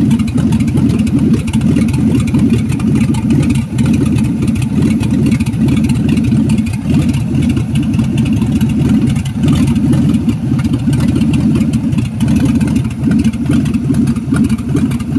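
The 1962 Comet's car engine, a later 70s-or-80s replacement, idling steadily close up under the open hood.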